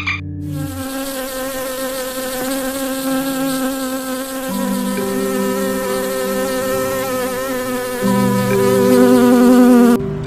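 Paper wasps buzzing around their nest: a steady, slightly wavering wing hum with several tones at once. It grows louder near the end and cuts off suddenly.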